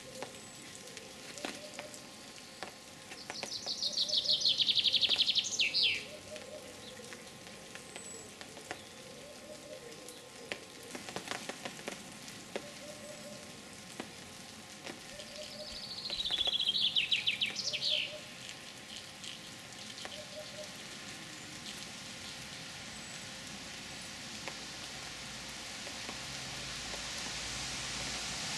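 Red squirrel gnawing a hazelnut shell: faint scratchy clicks and crackles throughout. A songbird sings a rapid trill of repeated notes twice, a few seconds in and again about midway, each lasting about three seconds and louder than the gnawing.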